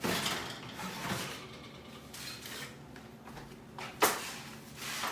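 Kitchen handling sounds: a sliding, scraping noise at first, then a sharp knock about four seconds in, like a cupboard or drawer being worked.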